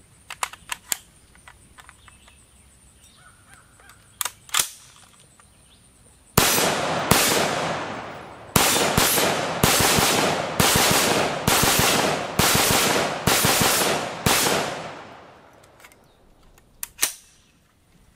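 Armalite AR-180 .223 rifle fired semi-automatically, about ten shots in eight seconds at a steady pace, each shot ringing out with a long echo. Sharp metallic clicks of the rifle being handled come before the shooting and again near the end, as the magazine is seated and then removed.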